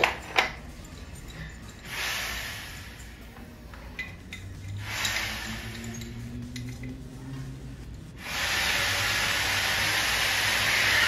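A few sharp metal clinks of hand tools on the pump's brass fittings. Then, about eight seconds in, a steady loud hiss starts and keeps going.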